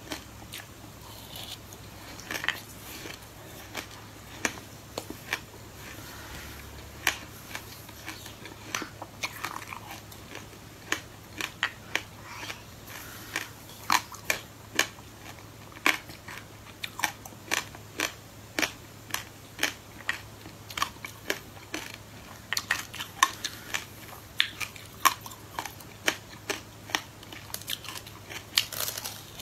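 Close-miked biting and chewing of a ball thickly coated in black sesame seeds: many sharp, irregular crunches, several a second, busiest in the second half.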